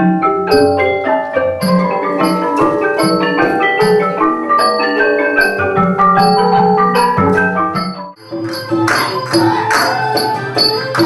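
Cambodian traditional dance music led by a roneat, the wooden boat-shaped xylophone, playing a running melody of struck notes over a steady high metallic tick. About eight seconds in it cuts abruptly to a livelier, denser piece with jingling percussion.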